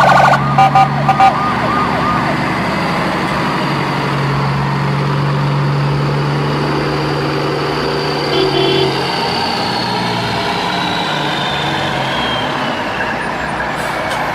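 Siren-and-truck sound effect: a steady engine-like hum under a high wailing tone that slowly falls in pitch, with a few quick electronic beeps in the first second.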